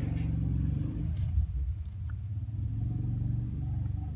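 A cat purring close by: a low, rapidly pulsing purr that swells and eases in phases with its breathing.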